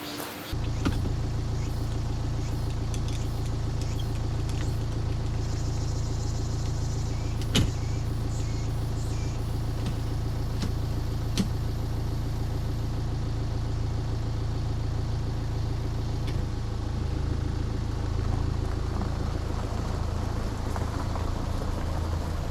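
A car running at a steady pace: low, even engine and road rumble that comes in suddenly about half a second in, with a couple of faint sharp clicks.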